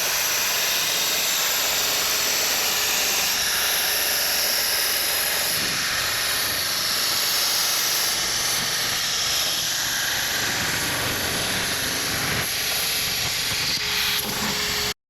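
CNC table's cutting torch cutting steel plate: a loud, steady hiss that cuts off suddenly near the end as the cut finishes.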